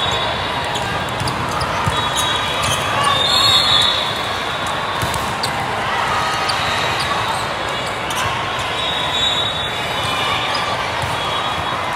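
Volleyball being passed, set and hit during a rally: scattered sharp thumps of the ball over the steady din of many voices in a large, echoing sports hall.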